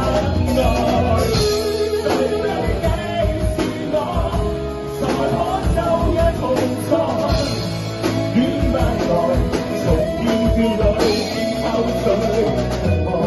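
Live rock band playing a ballad: electric guitar and drum kit, with a man singing into a microphone through the PA.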